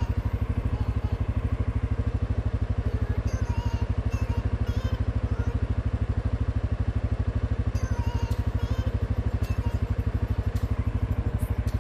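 CF Moto 520L ATV's single-cylinder engine idling steadily, an even, rapid low pulsing that holds unchanged.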